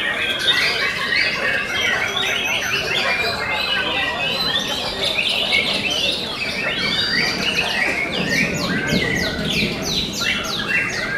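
Several caged white-rumped shamas (murai batu) singing at once in a contest: a dense, unbroken tangle of quick whistles and chattering phrases. Near the end a run of fast, evenly repeated down-slurred notes stands out.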